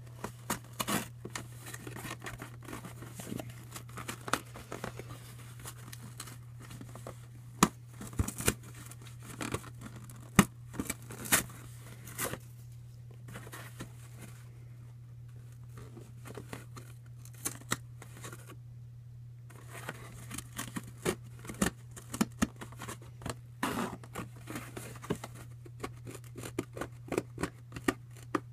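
Thin cereal-box cardboard being cut and torn by hand: irregular snips, scrapes and crackles, with a quieter stretch near the middle, over a steady low hum.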